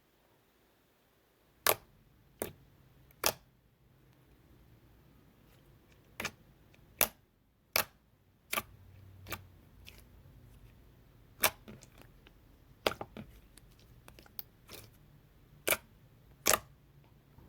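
Sharp, separate clicks and taps, about fifteen at irregular intervals, over a faint low hum.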